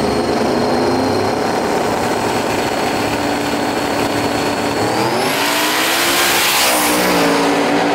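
Two drag-racing Ford Mustangs, one a twin-turbocharged Coyote V8, are staged at the line with their engines held at a steady raised rpm and a thin, steady high whine above them. About five seconds in, they launch: the engine pitch climbs and the whine rises with it under a loud rush of noise.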